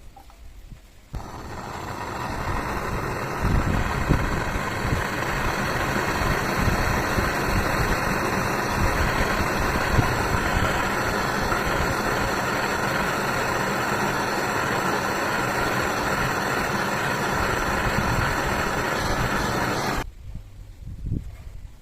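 A machine running steadily, starting about a second in and cutting off suddenly near the end.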